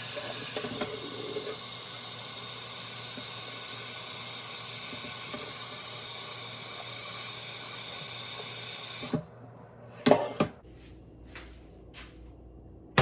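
Kitchen tap running steadily into a pot as it fills with water, turned off about nine seconds in. A couple of short knocks follow near the end.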